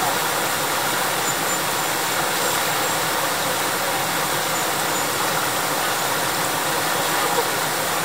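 Fast-flowing shallow river rushing over stones: a steady rushing of water.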